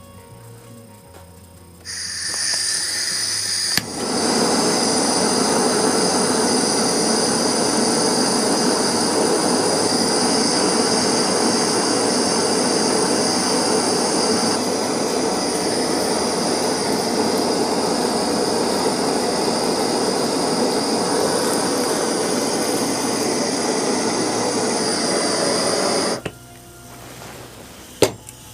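Electric power tool working metal while removing a broken head bolt from an outboard's cylinder head. A high whine begins about two seconds in, becomes a loud, harsh grinding about two seconds later, and stops abruptly near the end.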